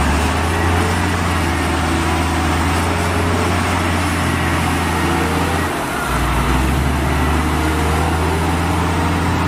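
Diesel engine of a Komatsu D58E crawler bulldozer running steadily under load as it pushes soil with its blade, with a brief dip in the engine note about six seconds in.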